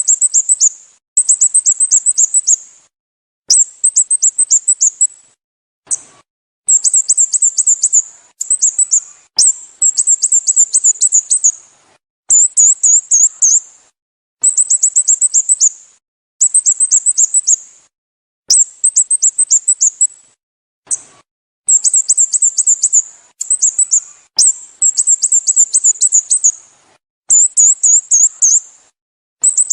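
Sooty-headed bulbul calling: phrases of rapid, high-pitched chirps, each a second or two long, repeated with short pauses over and over.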